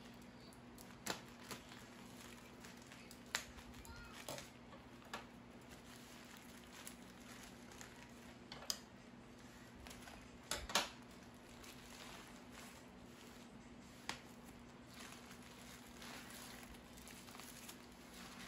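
Plastic bubble-wrap packaging being handled, crinkling and rustling, with scattered sharp clicks and taps, the loudest about ten and a half seconds in. A faint steady hum runs underneath.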